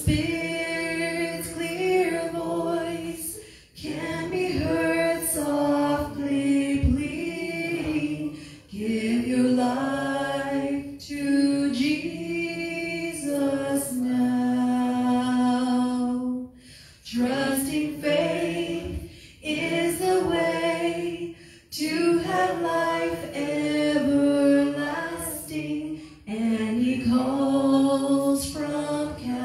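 A woman singing a slow hymn solo into a handheld microphone, in long held phrases with short breaks for breath between them.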